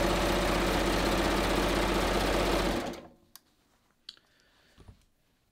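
Serger (overlocker) running steadily at speed, sewing a narrow three-thread overlock seam that attaches elastic to stretch knit, then stopping abruptly about three seconds in. A few faint clicks follow.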